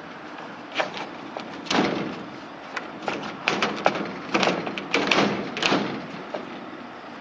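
Deck roof panel being slid and worked into its frame: a series of scraping slides broken by sharp knocks and clicks, busiest in the middle few seconds.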